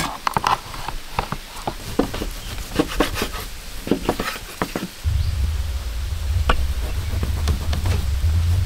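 A kitchen knife cutting through a firm, cooled slab of banana and cashew sweet and tapping on a wooden chopping board: a string of soft, irregular knocks and clicks. From about five seconds in, a low steady rumble sits under them.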